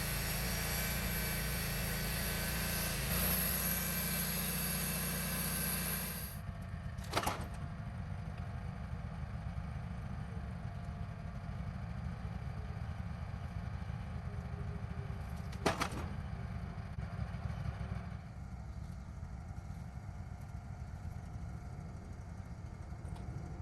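Wood-Mizer LT15 portable band sawmill running steadily. About six seconds in its even hum turns rougher, and two sharp clicks come later on.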